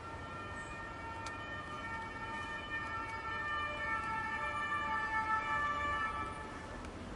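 French police car's two-tone siren, stepping back and forth between two pitches over street traffic noise. It gets louder over the first five seconds or so, then eases off slightly near the end.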